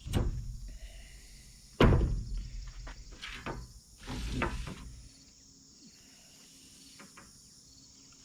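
Objects being moved and set down on a table: a knock right at the start, a louder thud about two seconds in, then a spell of shuffling and clattering before it goes quiet.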